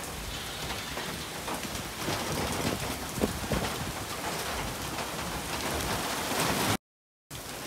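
Heavy rain falling on a wet street, a steady hiss with a few sharper drop ticks about three seconds in. The sound cuts out for about half a second near the end, then the rain resumes.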